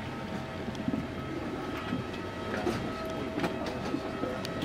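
Airliner cabin during deplaning: a steady hum of cabin air with a thin constant high tone, under the shuffle and rustle of passengers moving down the aisle with bags, with scattered light knocks and clicks.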